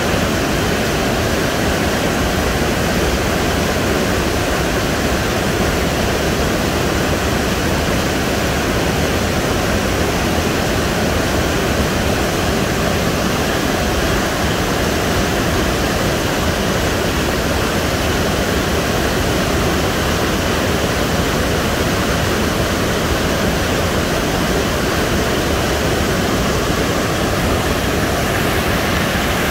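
Whitewater rapids of the upper Niagara River rushing over shallow rocky ledges, loud and steady throughout.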